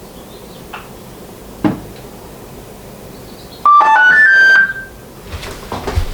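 Bambu Lab X2D 3D printer playing a short electronic startup chime: a quick run of beeping notes stepping mostly upward, lasting about a second, about halfway in. A couple of soft clicks come before it and light knocks of handling after it.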